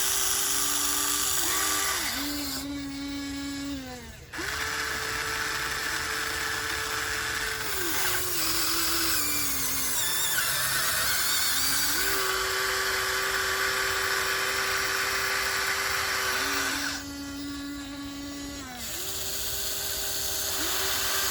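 Huina 1494 RC model excavator's electric motors whining as it digs, the pitch holding steady and then stepping down under load at several points, with a brief drop in level about four seconds in.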